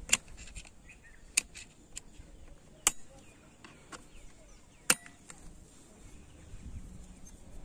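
Sharp clicks of metal tools and parts being handled during work on a motorcycle's opened gearbox: four loud ones at irregular intervals in the first five seconds, with lighter clicks between.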